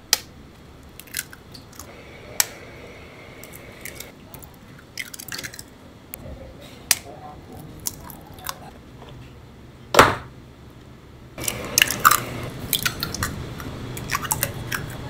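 Food-preparation sounds at a pancake stall: irregular knocks and clicks of utensils and dishes over a steady background hiss, with one loud knock about ten seconds in and a busier, denser stretch of clatter near the end.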